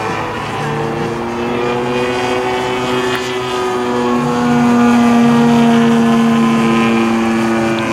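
Engine and propeller of a radio-controlled Extra 330 aerobatic model plane droning steadily in flight. It grows louder about halfway through, and its pitch falls near the end as the plane passes.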